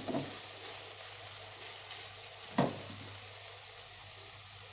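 Minced lemongrass, chili and turmeric sizzling in oil in a nonstick frying pan, a steady hiss. A wooden spatula knocks once against the pan about two and a half seconds in.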